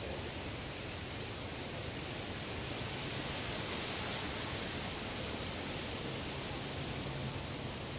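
Woodland ambience: a steady rushing noise with no distinct calls or knocks, swelling slightly about three seconds in.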